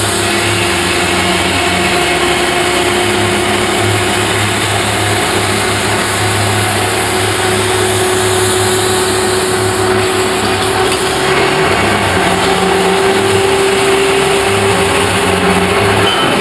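Large metal-spinning lathe running, a big sheet-metal disc turning on its form while a long hand-held spinning bar presses against it. The machine makes a steady, loud whirring noise with a held tone that wavers slightly.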